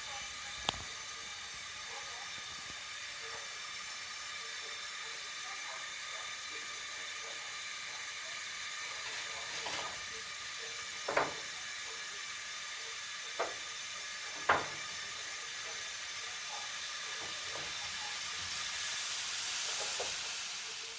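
Milk boiling in a pot: a steady hiss with a few sharp pops, the hiss swelling near the end.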